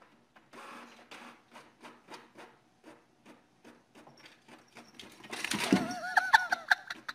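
Canon inkjet printer printing a page: short mechanical clicks and whirs as the print head and paper feed step along. About five seconds in, a louder rustling burst comes in, with a quick wavering voice-like sound over it.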